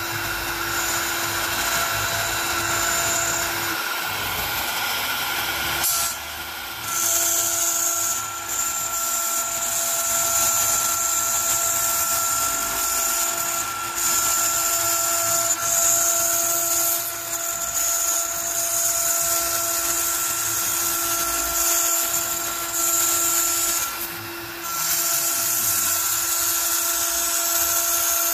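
Onefinity CNC's router spindle, set to 18,000 rpm, whining steadily as a single-flute upcut spiral bit cuts 3/8-inch cast acrylic. The level dips briefly about six seconds in and again about three-quarters of the way through.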